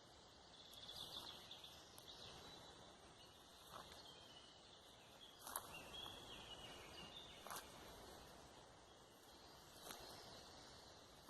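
Quiet forest ambience: faint, high bird chirps over a steady hiss, with four short soft clicks spread through it.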